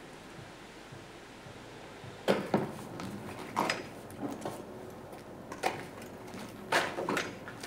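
Faint outdoor hush, then from about two seconds in irregular sharp knocks and clatter from a person moving about and handling things beside a horse in an open barn with a concrete floor.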